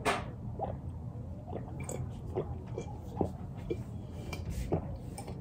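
A child gulping a drink from a glass, swallowing in short, regular gulps at about two a second.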